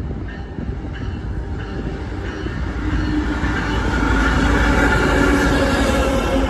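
Metra commuter train passing close by: the diesel locomotive's engine rumble grows louder as it draws level about four seconds in, followed by the steady rolling noise of the bi-level coaches' wheels on the rails.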